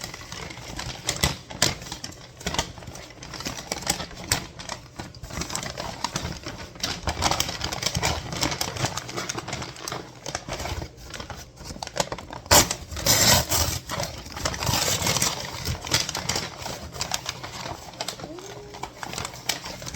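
Irregular clicks, taps and plastic rustling from handling food packaging at a table, with a louder stretch of rustling about 13 to 16 seconds in.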